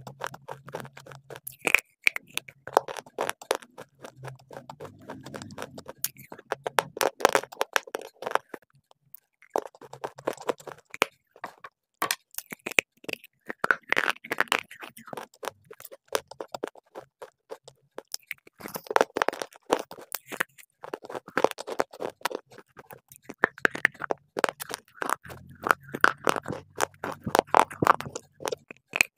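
Close-miked crunching and chewing of brittle baked clay: slate pencils and shale bars bitten and ground between the teeth. The sound comes as clusters of sharp crackles and scrapes with short pauses between bites.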